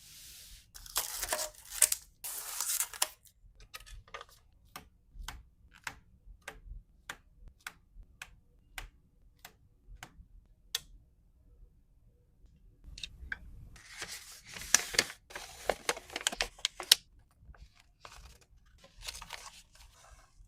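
Packaging handled by hand: bursts of crinkling and tearing, with a run of about fifteen sharp clicks, roughly two a second, in the middle, then a quiet spell before more crinkling near the end.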